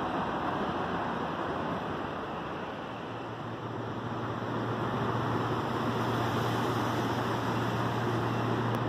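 A departing electric train's rumble fading in a station, then a standing electric commuter train humming steadily at the platform with its doors open: an even low hum over a wash of noise.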